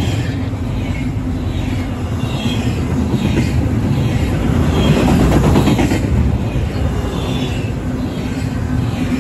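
Double-stack intermodal freight train's well cars rolling past: a steady rumble of steel wheels on rail, with brief high squeals from the wheels now and then.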